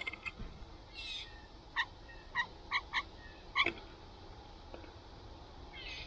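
Blue jay calls at a feeder: a harsh raspy call about a second in, then five short, clipped notes over the next two seconds, and another harsh call near the end.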